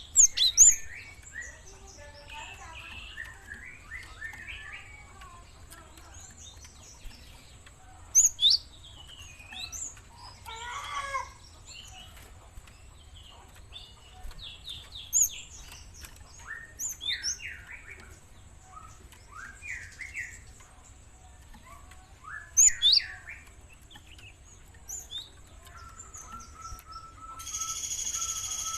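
Young gelatik bird calling actively: bursts of short, sharp chirps and quick little trills that come every few seconds. A steady buzzing tone sounds for a second or so near the end.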